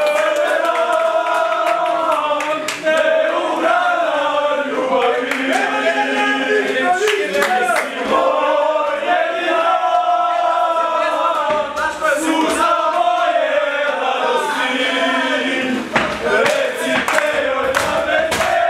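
A group of men singing a chant together, with hand clapping.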